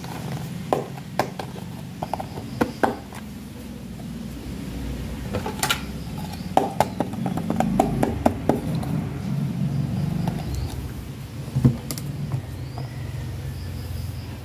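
Small hard-plastic toy doll accessories being handled: scattered clicks and taps of plastic on plastic, over a low steady hum that swells in the middle.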